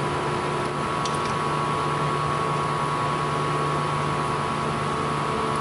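Steady mechanical hum holding two high steady tones, with a few faint light clicks about a second in.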